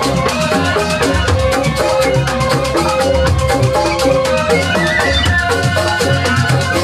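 Balinese joged bumbung gamelan playing dance music: struck bamboo instruments in a fast, dense rhythm over drums and a heavy low pulse.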